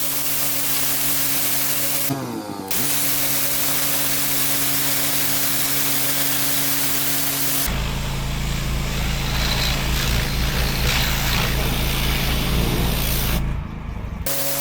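Pressure washer jet spraying water onto patio paving, a steady loud hiss over the even hum of the machine. It breaks off briefly about two seconds in and again near the end, and from about halfway the spray sounds heavier and lower.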